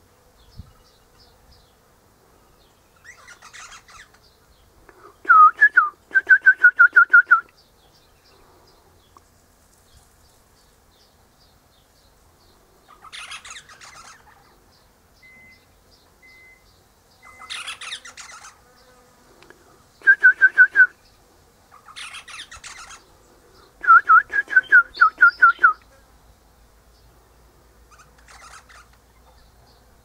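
Eastern rosella calling: three loud bouts of rapid repeated piping notes, about seven a second and each a second or two long, with softer, scratchier chatter in between.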